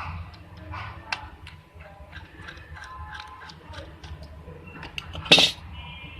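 Scattered light clicks and taps over a low hum, with one louder, sharper noise about five seconds in.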